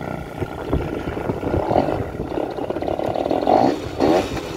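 Peugeot Kisbee 50cc two-stroke scooter engine running and being revved, its pitch rising and falling, with a sharp rise about four seconds in.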